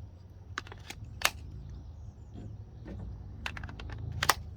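Several sharp plastic clicks and knocks from a cordless-tool battery pack and adapter being handled and snapped together, over a low steady hum. The loudest clicks come about a second in and near the end.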